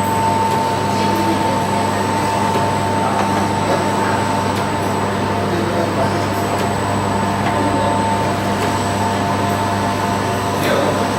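Steady hum of running electric machinery: a constant low drone with a steady higher tone over a noisy whir, unchanging throughout.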